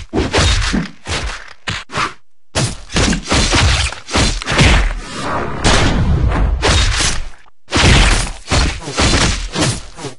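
Rapid string of cartoon fight sound effects: hits, thuds and whooshing blade swings piled one on another, broken by two short silences, about two seconds in and again about seven and a half seconds in.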